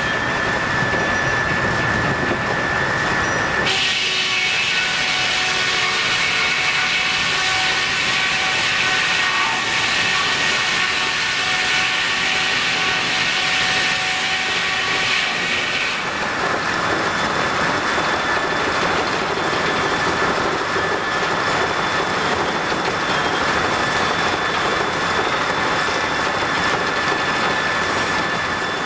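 Machinery of a steam-powered sawmill running, with a steady high whine over a loud clatter. About four seconds in the sound turns abruptly brighter and higher with several steady tones, and about sixteen seconds in it drops back.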